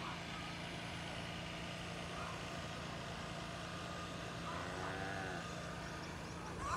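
A steady low mechanical hum, like an engine running at a distance, with a few faint short chirps over it.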